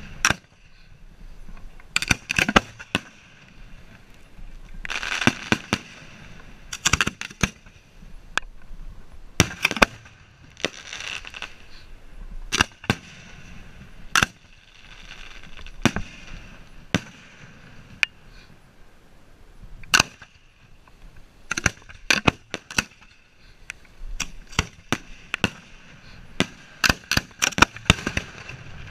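Fireworks shells being hand-fired from mortar racks close by: a string of sharp bangs at irregular intervals, some coming in quick clusters, with stretches of hissing between them. One of the loudest bangs comes about two-thirds of the way through.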